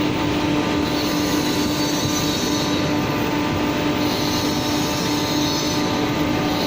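Steady machine noise: a constant hum with a low tone and an even hiss over it, running without a break.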